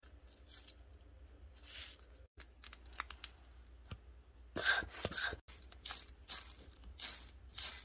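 Clear plastic tape crinkling and crackling as it is handled. In the second half a round, bead-filled clear tape bubble is squeezed over and over, about three crinkly squeezes a second.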